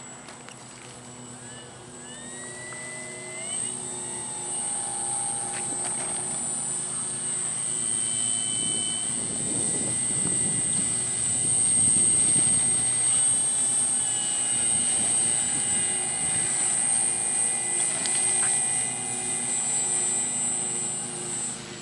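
Radio-controlled T-28 model airplane's motor and propeller running, with a high steady whine; the pitch climbs in the first few seconds and the sound grows louder toward the middle, then falls away at the very end.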